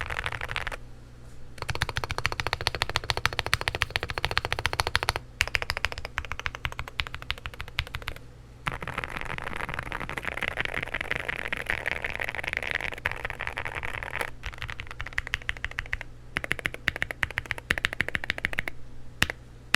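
Typing on an unmodified Akko JIN01 mechanical keyboard with Akko Rosewood linear switches, an FR4 plate, gasket mount, full foams and thick stock PBT keycaps, giving a low-pitched sound. Fast runs of keystrokes break off in short pauses, with a denser, quicker stretch of typing in the middle.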